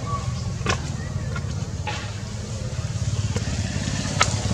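Steady low rumble of a running motor-vehicle engine, with a few short sharp clicks.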